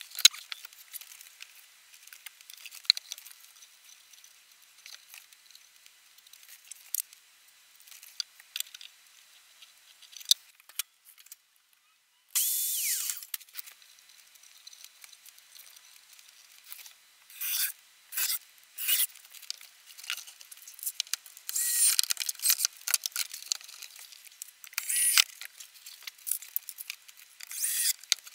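Heat-treated wooden panel pieces being handled and shifted on a workbench, with irregular short scraping, rubbing and knocking of wood on wood. The strokes come closer together in the second half.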